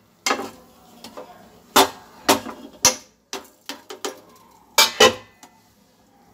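Plastic slotted spatula scraping and knocking against a nonstick frying pan while sugar and whole spices in ghee are stirred: a run of short, irregular scrapes and clacks, the sharpest about two seconds in and again about five seconds in.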